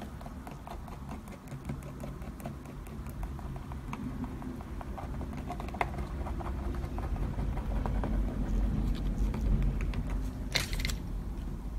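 Rapid, irregular light taps of a brush dabbing alcohol ink onto the painting surface, over a low steady hum, with a short hiss near the end.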